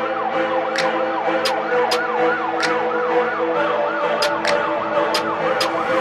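Background music: a fast, siren-like rising-and-falling synth wail over steady held tones, with a sharp tick roughly every half second.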